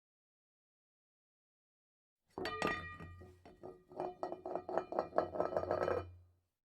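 Music with quick, clinking, bell-like strikes over a steady low hum. It starts after about two seconds of silence, runs for about four seconds, then fades out.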